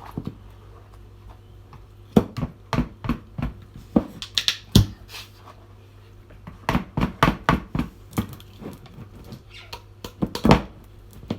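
Kitchen utensils clicking and knocking against bowls and containers in irregular clusters, with a short loud knock near the end.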